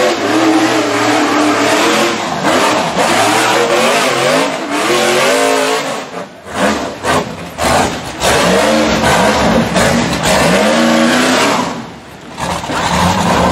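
Rock bouncer buggy's engine revving hard in repeated bursts while climbing rock ledges, the pitch swinging up and down. About six seconds in it drops off and comes back in short blips, and it dips once more near the end before rising again.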